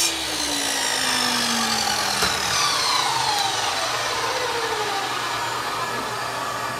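Electric saw running as it cuts into a bowling ball's shell and core, its motor pitch sliding slowly down under load. Another downward slide starts near the end.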